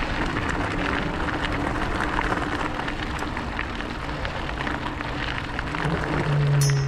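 A low engine drone over a steady rushing noise. The drone swells near the end.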